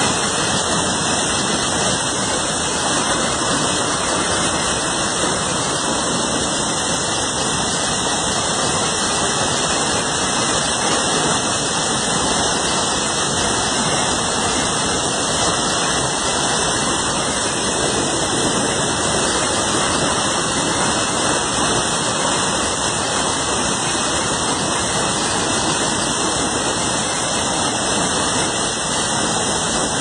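A waterfall in flood after hurricane rains, pouring with a loud, steady rush of noise.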